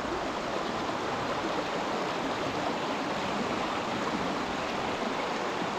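Flowing water of the Black Drin river: a steady, even rushing.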